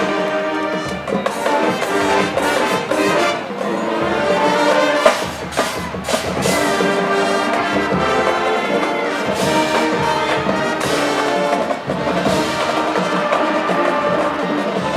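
Marching band playing on the field: brass winds holding sustained chords over drums, with a sharp loud hit about five seconds in.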